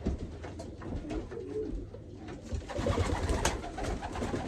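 Domestic pigeons cooing in a small loft, with a few short knocks and rustles from handling at the nest boxes.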